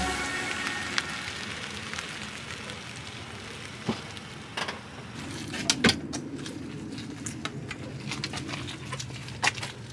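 Scattered sharp metallic clicks and knocks as a caravan's drawbar-mounted bicycle carrier and hitch are handled. Outdoor background noise runs underneath, and a low steady hum comes in about halfway.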